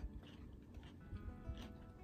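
Quiet background music, with a few faint crunches and clicks of salad being eaten with a fork from a plastic container.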